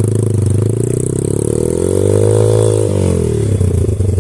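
Off-road motorcycle engines running: one holds a steady low note while another revs up and falls back down over about two seconds around the middle.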